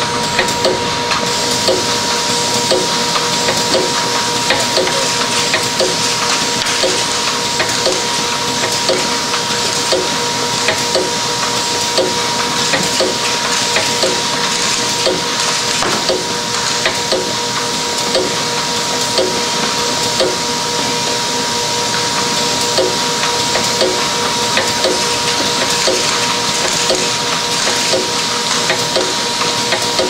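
DEL intermittent lid plugging machine running: a steady hiss and whine with regular short mechanical clacks, a little over one a second, as it cycles through its plugging strokes.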